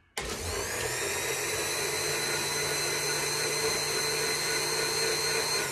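Countertop blender blending oranges, lemon, turmeric and ginger with lemonade into a purée. It switches on abruptly just after the start, its whine rising briefly as the motor spins up, then runs steadily and shuts off at the very end.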